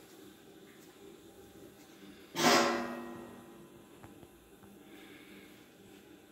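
A short burst of steam hissing from a vertical autoclave's pressure-release valve: it comes on suddenly about two seconds in, is loud for a moment, then fades away over about a second. A faint steady sound from the running autoclave lies under it.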